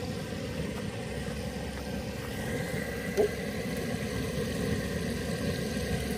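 Outdoor propane burner running under a pot of oil frying chicken: a steady rushing roar. A brief high blip cuts in about three seconds in.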